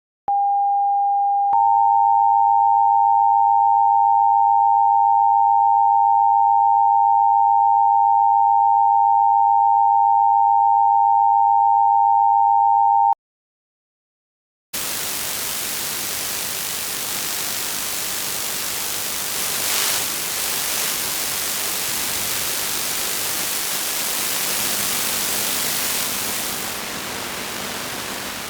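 An emergency-alert attention signal: a short single steady tone, then a slightly higher two-tone alert held for about eleven seconds that cuts off abruptly. After about a second and a half of silence, loud steady static hiss starts and runs on, easing a little near the end.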